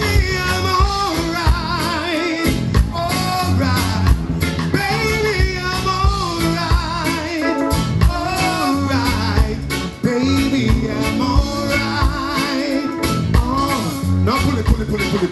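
Live reggae band: a male lead vocalist sings with a wavering vibrato over electric guitar, keyboard and drums.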